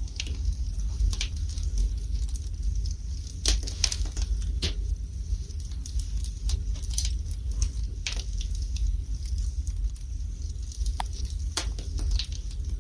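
Wood fire burning in a fireplace: irregular sharp crackles and pops of the burning logs, some in quick clusters, over a steady low rumble.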